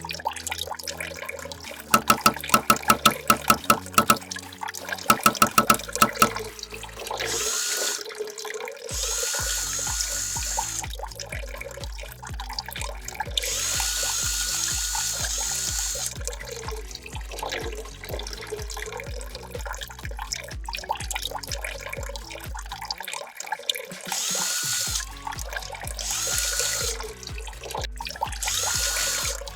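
Background music with a steady beat, over water running from a tap in several spells of one to three seconds each. Rapid clicking comes in two short runs in the first few seconds.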